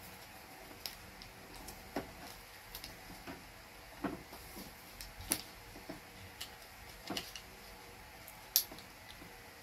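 Paper being folded and creased by hand: scattered soft crinkles, rustles and light taps at irregular intervals, with one sharper snap near the end.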